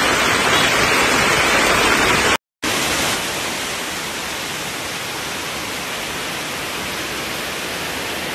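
Steady noise of heavy rain and rushing floodwater. It cuts out briefly about two and a half seconds in, then carries on a little quieter.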